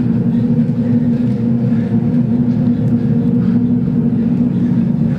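Loud, steady low drone of several held tones over a low rumble, with no beat, from the sound score of a dance performance.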